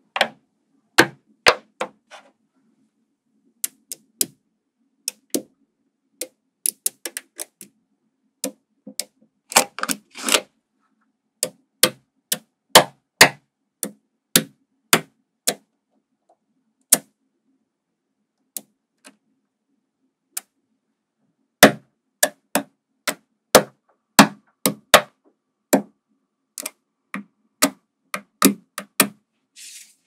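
Small magnetic balls clicking as blocks of them are snapped onto each other: sharp, irregular clicks, singly and in quick clusters, with a lull about two-thirds of the way through.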